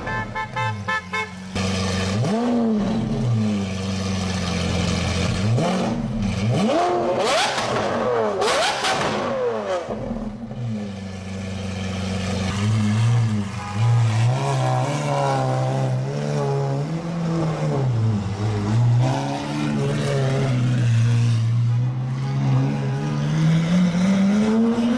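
Lamborghini supercar engine idling and being blipped: its pitch swoops up and falls back several times, with two sharp cracks about seven and eight and a half seconds in. Near the end comes a long rising rev.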